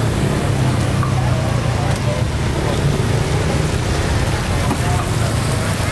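Roadside market ambience: a steady low rumble of traffic under scattered background voices.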